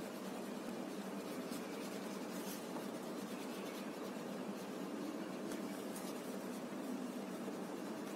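Faint scratching of a crayon colouring on an envelope's paper, over a steady low hiss.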